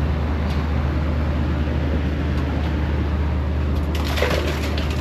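A steady, loud low mechanical hum of running machinery, with a brief noisy rustle near the end.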